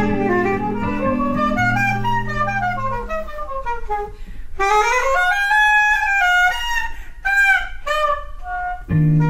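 Soprano saxophone playing a melodic line of quick rising and falling runs over low held guitar chords. The chords drop out about three seconds in, leaving the saxophone alone, and the guitar comes back in near the end.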